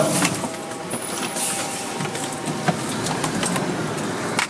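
Fire engine running at low speed, heard from inside its cab: a steady engine drone with a few sharp clicks and knocks.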